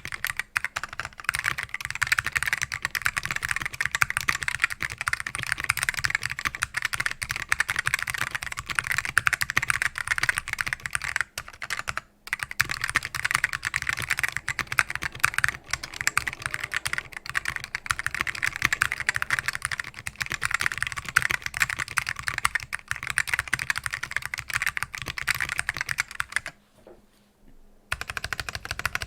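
Mechanical keyboard with linearized, relubed black Alps switches on an FR4 plate and SGI granite keycaps, typed on quickly and continuously. The typing stops briefly about twelve seconds in and for just over a second near the end.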